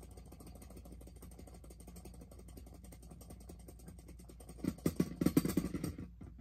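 Beyblade spinning top whirring on a plastic stadium floor with a faint, fast rattle. About four and a half seconds in it starts wobbling and clattering loudly for a second or so as it loses spin, then goes quiet.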